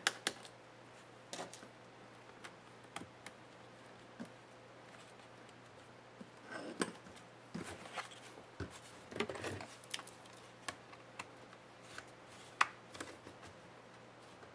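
Scattered light clicks and knocks of a plastic laptop display assembly and its plastic hinge cover being handled and turned over by hand, with a couple of short bursts of scraping and rustling in the middle.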